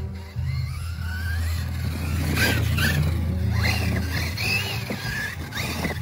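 Axial Son-Uva Digger RC monster truck's electric motor whining, rising and falling in pitch several times as the throttle is worked, with tyres skidding on grass and dirt.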